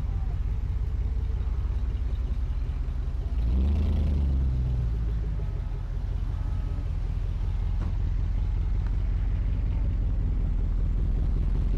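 Low rumble of a vehicle engine running, swelling louder about three and a half seconds in.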